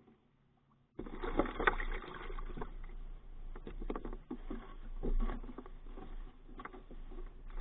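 Handling noise picked up by a camera mounted on an RC model boat. Irregular knocks, scrapes and rustles with a low rumble start about a second in as the boat is lifted from the water and moved through bankside plants. Its engine is silent.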